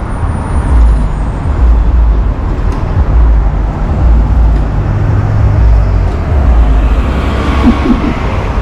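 Downtown street traffic heard from a moving bicycle, under a heavy, uneven low rumble of wind on the microphone; a vehicle swells louder near the end.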